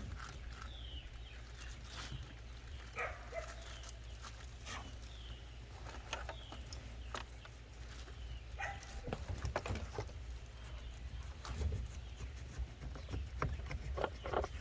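Scattered small clicks and scrapes of a knife working through a snapping turtle's foot joint, with short animal calls and chirps in the background.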